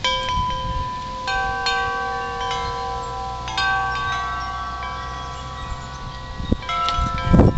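Metal wind chimes ringing as the wind stirs them, several clear tones struck one after another and left to ring out. A rush of wind noise rises near the end.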